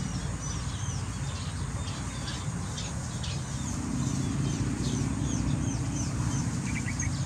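Small birds chirping: scattered short, high chirps, with a quick run of four notes near the end, over a low steady rumble.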